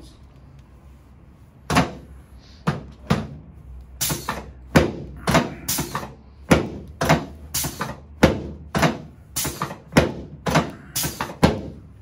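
Chiropractic SI-joint adjustment: quick hand thrusts on the pelvis make the padded adjusting table thump sharply. A few single thumps come first, then a steady run of about two a second.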